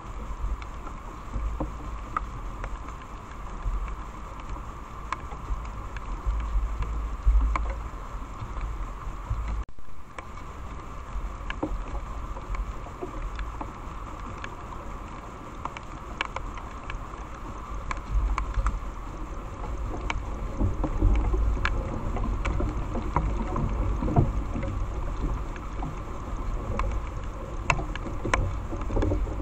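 Wild boar rooting and shuffling through dry leaf litter: scattered rustles and crackles, growing louder and busier in the second half as a boar comes close, over a steady background hiss and low rumble.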